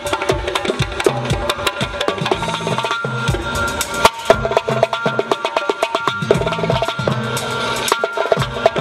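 Ensemble of doira frame drums playing a fast, dense rhythm of sharp slaps with recurring deep bass strokes. The deep strokes drop out briefly about three seconds in, and a loud accented strike follows about a second later.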